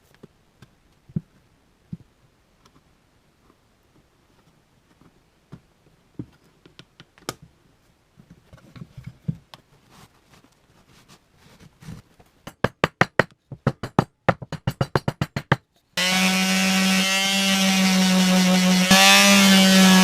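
Scattered light clicks and taps of workshop handwork, then a quick even run of clicks about eight a second; about four seconds from the end a power tool starts abruptly and runs loudly with a steady pitched hum that wavers slightly under load.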